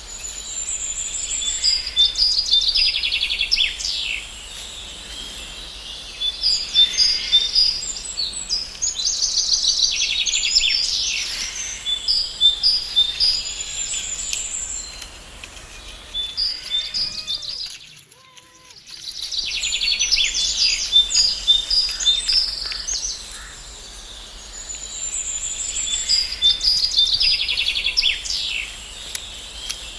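Small birds chirping and singing: quick high-pitched trills and repeated chirps that come in clusters, with a brief drop to near silence about two-thirds of the way through.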